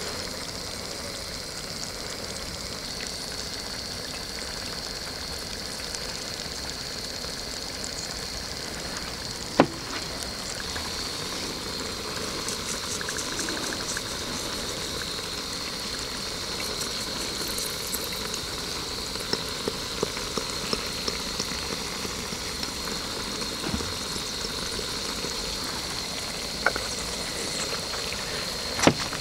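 Steady outdoor ambience: a constant high-pitched hiss with a few sharp clicks, the loudest about ten seconds in and another near the end.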